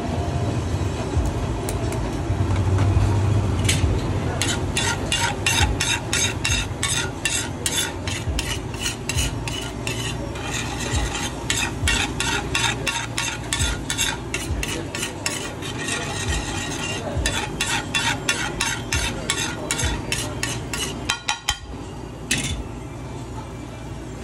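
A metal spatula clacking and scraping on a large flat griddle, striking it in a rapid, regular run of about two or three hits a second, over food sizzling as it fries. The hitting starts about four seconds in and stops a few seconds before the end.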